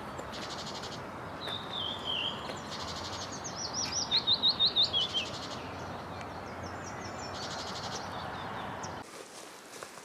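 Great tit calling: a short falling call, then near the middle a quick run of about seven repeated high, ringing notes, over a steady outdoor hiss.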